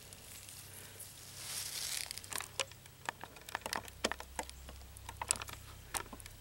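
Dry brush rustling, then a run of short, sharp clicks and snaps as a hand grabs and handles a thin twig on a bush.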